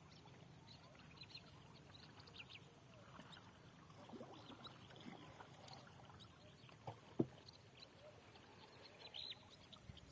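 Faint chirping of small birds: many short, high calls scattered through, over a quiet background. A single sharp knock, the loudest sound, comes about seven seconds in, with a softer one just before it.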